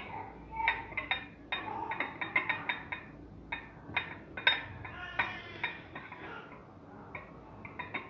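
Light clicks and taps of hands handling a sugar-filled turnip in a dish, with a few short, high-pitched cries in the background.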